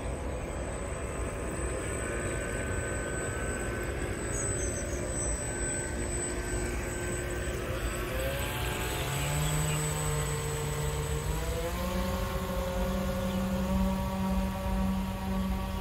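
Whine of a radio-controlled model ferry's motors, a steady pitched hum that rises in two steps as the boat throttles up and speeds away, over a steady low rumble.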